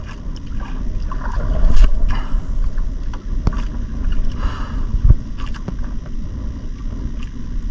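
Wind buffeting the microphone over water lapping against an outrigger boat, with a low rumble throughout and several sharp knocks, about five in all.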